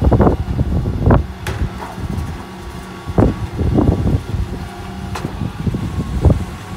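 Bin lorry's Terberg OmniDEL rear bin lift tipping a wheelie bin, over the steady hum of the truck's engine and hydraulics, with irregular knocks and clatters as the bin is shaken and rubbish drops into the hopper.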